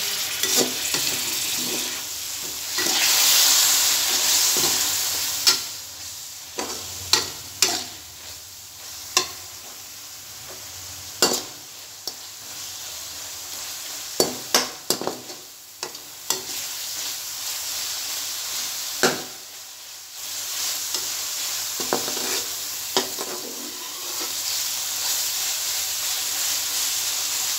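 Onion-tomato masala frying down in hot oil in a metal karahi, sizzling steadily while a slotted metal spoon stirs it. The spoon clinks and scrapes sharply against the pan many times. The sizzle swells louder near the start and again in the last third.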